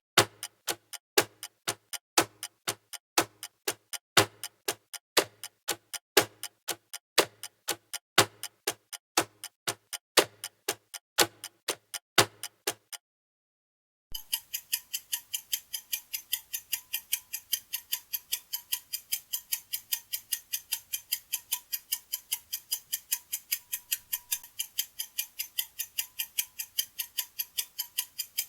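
Clock ticking: a deep, heavy tick-tock about twice a second that stops about 13 seconds in. After a second of silence a lighter, faster tick follows, about four times a second.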